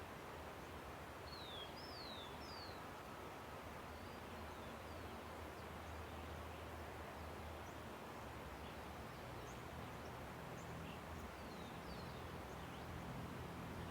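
Steady rush of a river with birds calling over it: three quick falling chirps in a row about a second in, then scattered short calls.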